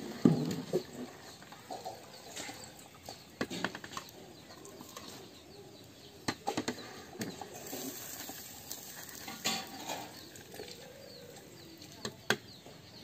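Scattered clanks and scrapes of a long metal ladle and skimmer against a large metal pot of boiled rice as it is stirred and scooped, about a dozen separate knocks with quieter stretches between.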